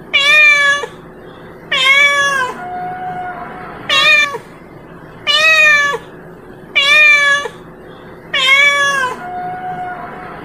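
A cat meowing over and over: six meows about one and a half seconds apart, each dropping in pitch at the end.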